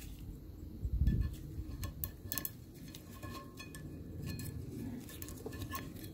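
Light metallic clicks and clinks of steel pliers against a hydraulic cylinder's piston rod while an O-ring is worked onto the rod end, with a dull bump of handling about a second in.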